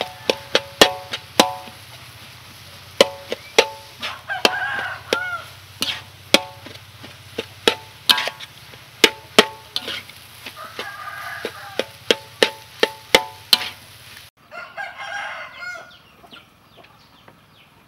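A metal spatula clanking and scraping against a wok while stir-frying rice, sharp irregular strikes about two a second, some with a brief metallic ring. Hens cluck now and then, and again after the clanking stops about three-quarters of the way through.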